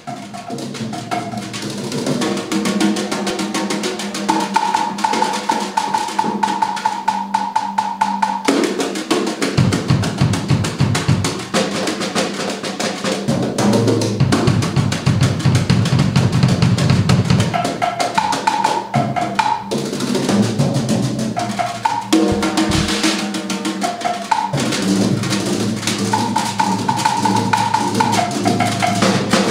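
Liberty drum kit played fast and busy, with dense rapid strokes across the drums and cymbals and stretches of heavy bass-drum and tom work, over sustained pitched notes that step from one to the next like a backing track.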